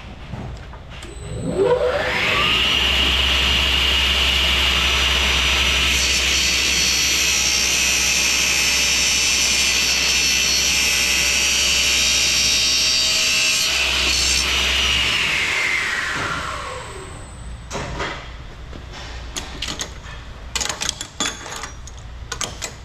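CTD F255RHC 14-inch straight-cut chop saw with a 3 HP motor, run on 208 V. It is switched on and spins up with a rising whine, runs steadily at speed, then is switched off and coasts down with a falling whine. A few sharp clatters follow near the end.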